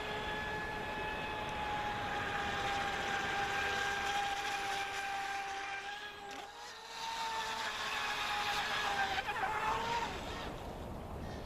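High-pitched whine of an RC boat's 1400 kV brushless inrunner motor on 3S, driving a Kyosho Dolphin outboard's flex shaft and propeller at speed. The whine holds steady, fades briefly about six seconds in, then returns at a slightly higher, wavering pitch near the end as the throttle changes.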